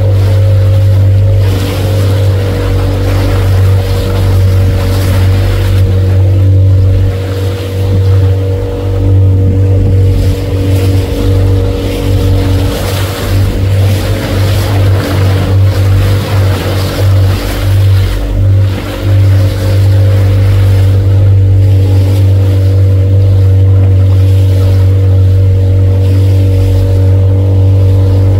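A motorboat's engine running at a steady speed, a constant low drone, with water rushing and splashing against the hull. For several seconds in the middle the drone wavers and breaks up as the boat pitches over the chop.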